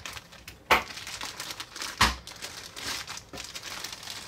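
Thin clear plastic bag crinkling and rustling as a plastic toy blaster is worked out of it, with two sharper, louder crackles, one just under a second in and one about two seconds in.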